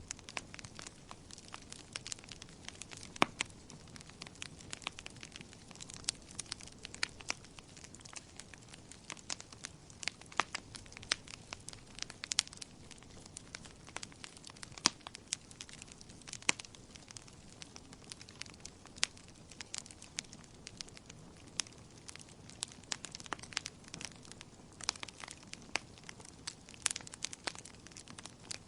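Wood fire in a fireplace crackling, with frequent irregular sharp pops and snaps over a soft, steady low hiss of the burning.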